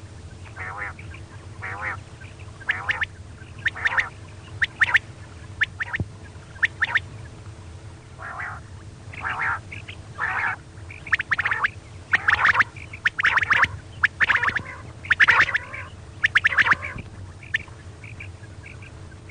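Female common quail giving short, raspy calls over and over, louder and in quicker runs in the second half, over a steady low hum.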